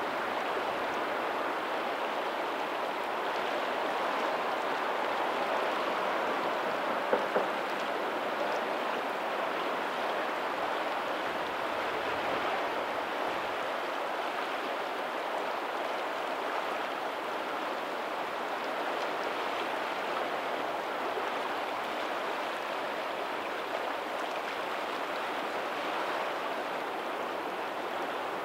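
Steady rush of tidal lagoon water flowing out over a pebbly shore, with faint ocean surf behind it. Two brief louder sounds come about seven seconds in.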